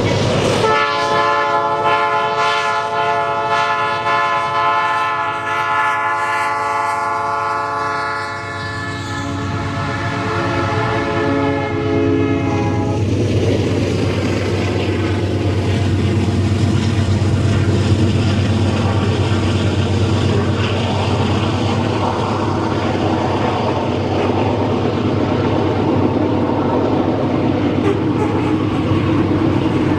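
Locomotive air horn sounding a long blast of several notes at once for about twelve seconds, then cutting off, followed by the steady rumble of the train rolling past.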